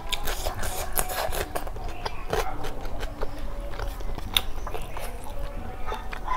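Close-miked eating sounds: wet chewing and sharp mouth clicks, with fingers scraping and mixing rice on a steel plate.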